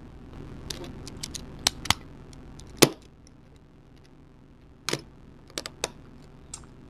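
Plastic pieces of a V-Cube 5 puzzle cube clicking and snapping against each other as they are handled and fitted, in about ten irregular clicks, the loudest about three seconds in.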